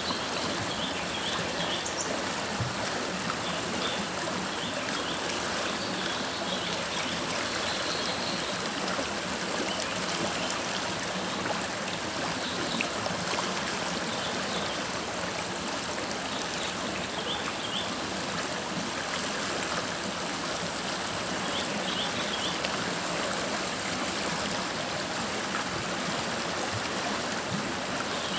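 River water flowing in a steady, unbroken rush with trickling. Faint short high chirps sound now and then over it.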